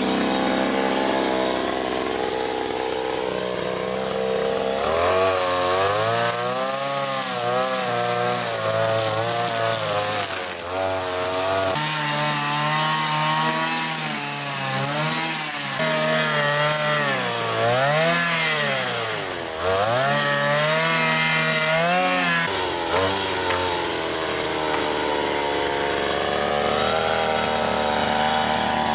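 Brushcutter (whipper snipper) with a bump-feed nylon line head running while cutting weeds. Its motor pitch swings up and down over and over through the middle stretch, steadier before and after.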